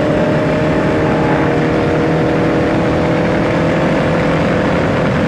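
Spec Racer Ford's four-cylinder engine running flat out at high, nearly steady revs, with wind and road noise around it.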